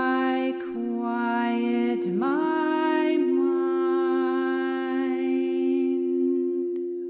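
Singing bowl ringing a steady drone while a voice hums long held notes over it, each new note sliding up into pitch. The last note fades out about six seconds in, leaving the bowl ringing alone.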